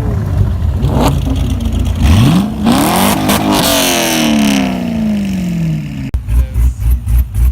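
Car engine revving: it rumbles, climbs in pitch about two seconds in, then falls away slowly as it drops back down or drives off. About six seconds in there is an abrupt change to a deep, rapidly pulsing engine sound.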